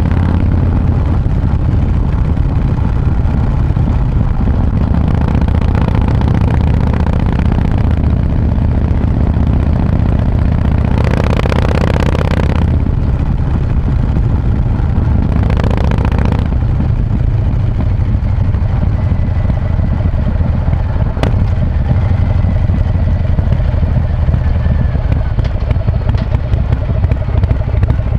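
2019 Harley-Davidson Breakout's Milwaukee-Eight V-twin, fitted with an S&S 475 cam, running steadily through Vance & Hines pipes with quiet baffles. Two short rushes of hissing noise pass over it, about a third and about halfway through.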